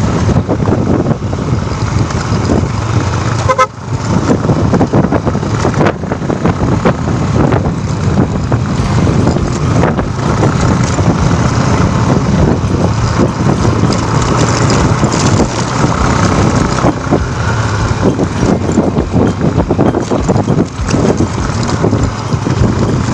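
A motor vehicle running, loud and continuous, with a brief tone about three and a half seconds in.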